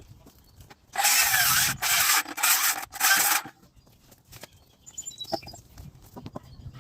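Four rough scraping strokes against wood, each lasting about half a second, with short gaps between them.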